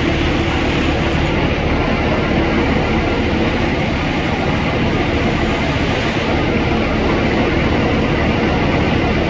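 Steady, loud drone of a fire truck's diesel engine running its water pump, mixed with the rushing spray of a fire hose jet.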